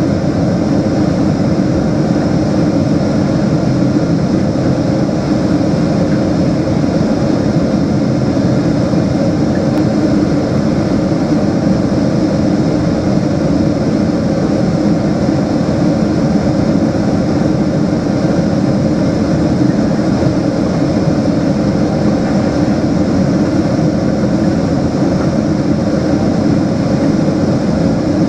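Steady cabin noise inside a Boeing 777-200ER on approach: its Rolls-Royce Trent 800 turbofan engines and rushing airflow, heard from a window seat beside the engine.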